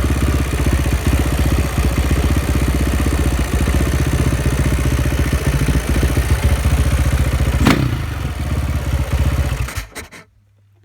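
KTM 560 SMR's single-cylinder four-stroke engine running steadily at low revs, heard close up from the handlebars, with a brief sharp noise about eight seconds in. The engine sound cuts off suddenly about ten seconds in.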